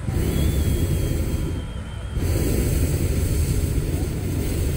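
Hot-air balloon's propane burner firing in loud blasts, heating the envelope as the balloon lifts off. It fires, stops briefly just under two seconds in, then fires again.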